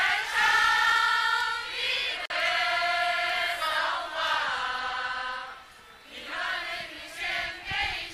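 A large group of people singing a song from their home province, Qinghai, together, in long held notes phrase after phrase; softer in the last couple of seconds.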